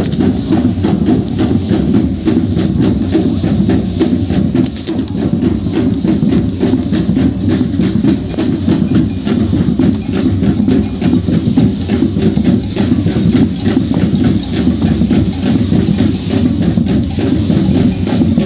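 Horses' hooves clip-clopping, a dense run of overlapping steps.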